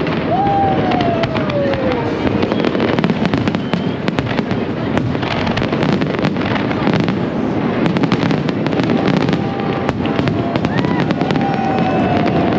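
Fireworks display in full swing: aerial shells bursting continuously with dense crackling throughout. A high tone slides down in pitch about half a second in, and again near the end.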